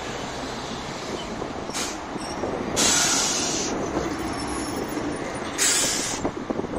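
A tram passing close by, its wheels running along the rails in a steady rumble, with two brief high, hissing bursts about three and six seconds in.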